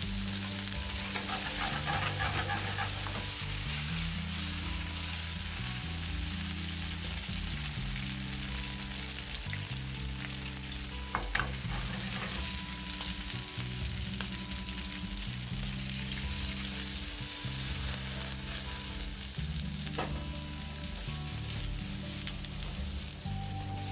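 Food sizzling and frying in a pan, stirred now and then, with two sharp knocks of a utensil against the pan about 11 and 20 seconds in.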